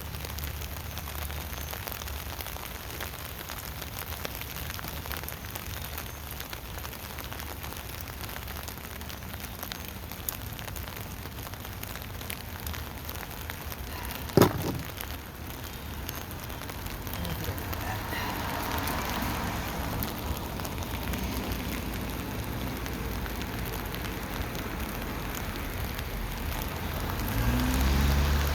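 Steady rain falling on a tent canopy, with many small drop ticks. A single sharp knock about halfway through, and a low rumble comes in near the end.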